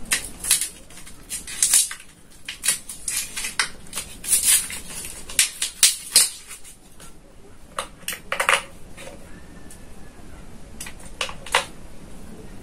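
Irregular plastic clicks, scrapes and rattles as batteries are fitted into the battery compartment of a Richmeters RM113D pocket digital multimeter, busiest in the first half and only a few clicks near the end.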